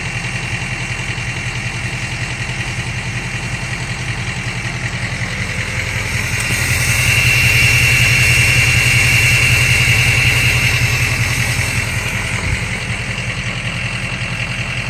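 6.0 Powerstroke V8 turbo-diesel with a 4-inch turbo-back exhaust idling. About six seconds in it is brought up in speed and held for several seconds, louder and with a high turbo whistle, then settles back to idle about twelve seconds in.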